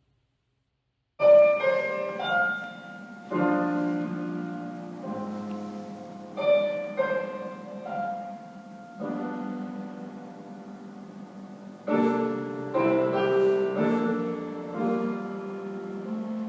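Solo piano playing a slow introduction, starting about a second in: chords struck every two to three seconds and left to ring.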